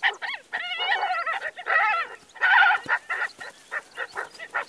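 Ethiopian wolves squealing and whining as they play-fight, with wavering high calls in the first half giving way to a quick run of short yips.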